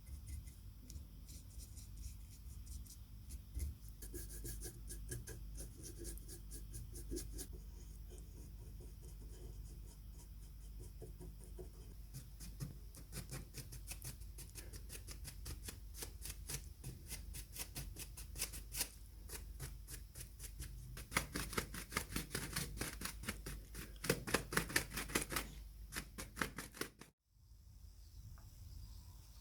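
Rapid, repeated scraping or brushing strokes of hand work on a surface, several a second. They grow louder and denser for a few seconds near the end, then break off suddenly.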